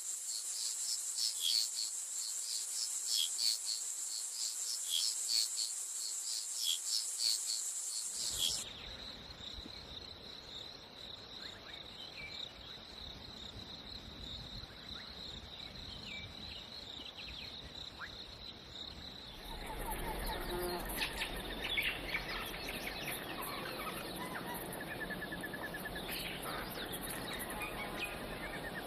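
Tropical rainforest soundscape of insects and birds. For about the first eight seconds a loud, high, steady insect buzz carries pulsing chirps about three times a second; then it changes to a quieter, steady high insect tone with a few scattered chirps. From about twenty seconds in, many short bird calls and a trill join over the insects.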